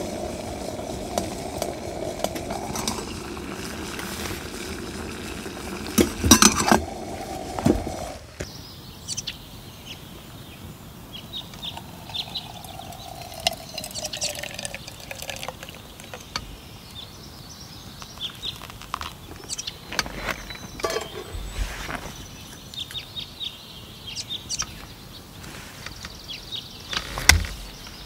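Kettle over a wood-stove fire with a steady tone and crackles, cutting off about eight seconds in. Then hot water poured from the kettle into a metal mug through a drip coffee bag, a faint tone slowly falling in pitch, followed by scattered light clinks and knocks of camp cookware.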